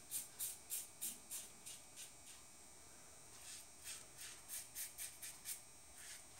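Lord Tech safety razor with a PermaSharp blade scraping through a day's stubble under shave-soap lather: faint, quick short strokes about three or four a second, with a break of about a second in the middle.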